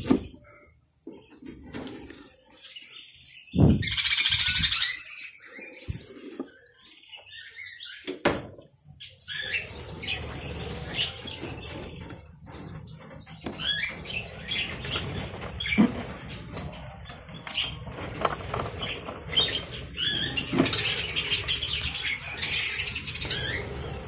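Budgerigars chirping and chattering in a colony aviary, busier in the second half, with a burst of wing flapping about four seconds in and a few low knocks.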